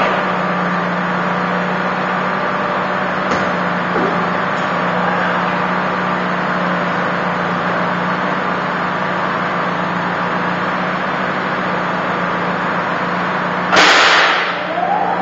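Steady whoosh and low hum of the dyno's cooling fan, with a few light knocks as the car is strapped down. Near the end, the Ford Focus RS mk1's turbocharged 2.0-litre four-cylinder fires up with a sudden loud bark through its decat Milltek exhaust.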